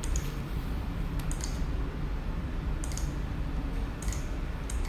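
A handful of computer mouse clicks, one every second or so, over a low steady background hum.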